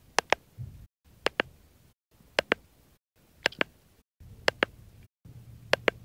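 Sharp clicks in pairs, six pairs about a second apart, each pair set in a short stretch of faint room noise broken by brief moments of dead silence.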